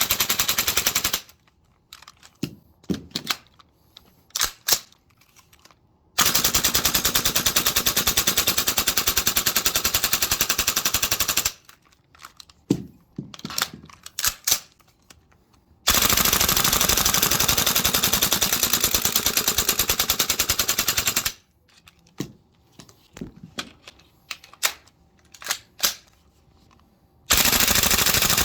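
VFC SR-16 carbine gas blowback airsoft rifle firing long full-auto strings, each about five seconds of rapid shots. In the pauses between strings come a few scattered clicks and clatters.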